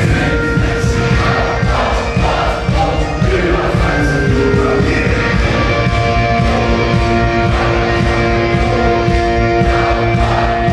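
Live medieval rock band playing loudly, bagpipes holding long notes over fast, driving drums, with many voices singing along.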